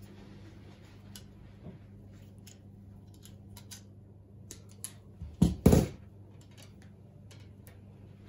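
Hand tools and copper wire being handled on a wooden worktop: scattered light clicks and taps, with a few loud knocks a little past halfway, over a faint steady hum.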